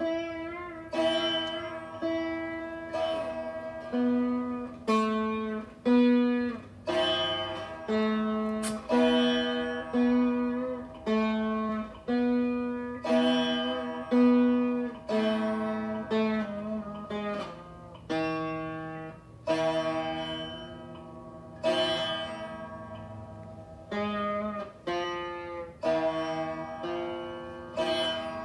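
Saraswati veena played solo: a simple Carnatic geetham to Ganesha, single plucked notes about one a second, each ringing and dying away, some of them bent or wavering in pitch.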